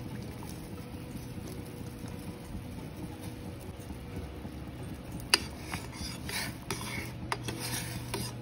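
Mussel broth simmering in a stainless steel pot. From about five seconds in, a metal ladle stirs the cream sauce, clinking and scraping against the pot's sides, the first knock the loudest.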